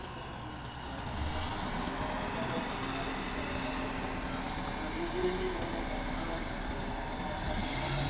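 Diesel multiple-unit commuter train running alongside the station platform, a steady engine hum and rumble.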